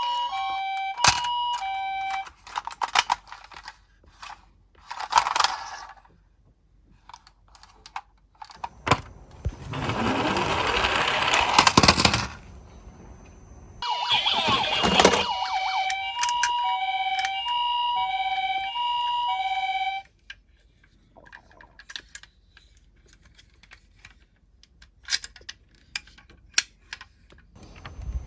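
A toy ambulance's electronic two-tone hi-lo siren sounds in two spells, at the start and again about two-thirds of the way through. Between the spells come small plastic clicks and clatter, and for a few seconds about a third of the way in there is a loud rolling rattle of toy cars running down a slope.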